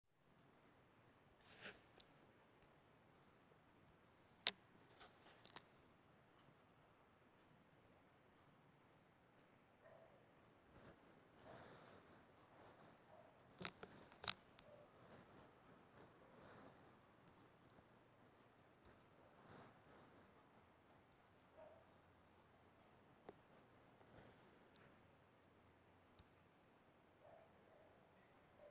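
Faint insect chirping: one high-pitched chirp repeating evenly, about two a second, with a few sharp clicks.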